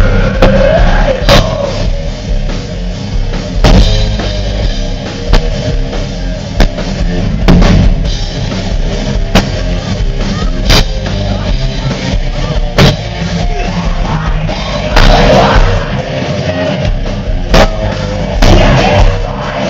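Live rock band playing loud and heavy, with a pounding drum kit, electric guitar and a singer, heard from within the crowd.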